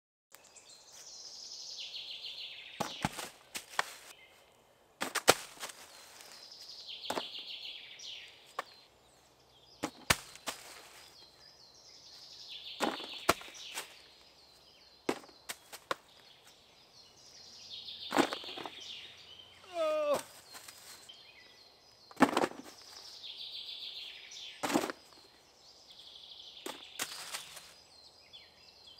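A bird outdoors singing the same short song phrase, which slides downward in pitch, about every five seconds, with scattered sharp clicks and knocks in between.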